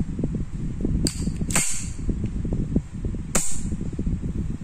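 Sharp metallic clicks of a freshly reassembled 1911 .45 pistol's action being worked in a function check, three clicks about a second, a second and a half and three and a half seconds in.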